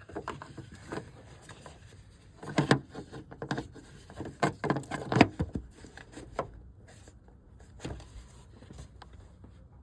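Headlight bulb cap being fitted over the back of the headlight housing and twisted on: a series of irregular clicks, knocks and scrapes, thickest a few seconds in.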